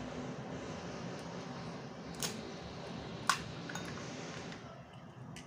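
Small sharp clicks of eggshell being cracked and picked off a boiled egg by hand, a few times, over a steady hiss and low hum that stops about four and a half seconds in.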